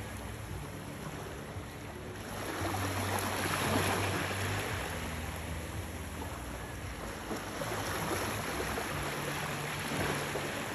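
Small waves washing gently onto a shallow beach, the wash swelling a few seconds in and again near the end. A low steady hum runs underneath.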